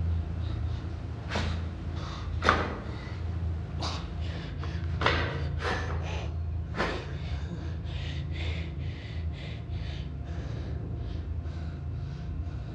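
A man gasping and breathing hard in short, sharp breaths, quicker and fainter in the second half, over a steady low hum.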